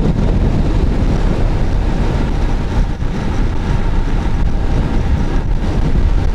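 Wind buffeting the microphone of a camera riding on a moving road bike: a loud, steady rushing rumble.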